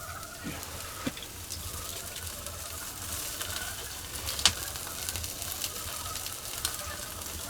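Spanish mackerel sizzling on a wire grill over a wood-ember fire: a steady hiss with scattered small crackles and one sharp pop about four and a half seconds in.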